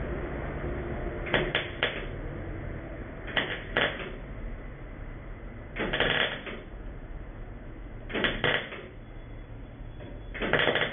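Arc welder laying short tack welds on a patch panel in a truck firewall: five brief bursts of arc crackle, about two seconds apart, each lasting half a second to a second.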